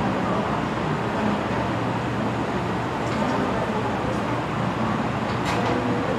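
Steady background noise of a busy classroom, with a brief scratchy sound about five and a half seconds in.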